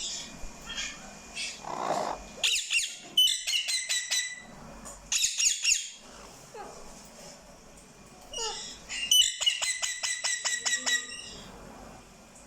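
Pet parrot calling in three bursts of rapid, repeated shrill notes, with quieter chatter between them.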